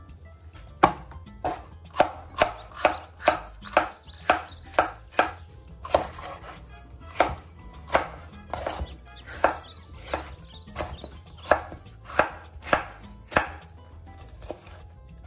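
Chef's knife slicing bell peppers on a bamboo cutting board: a steady run of sharp knocks, about two a second, as the blade meets the board, stopping shortly before the end.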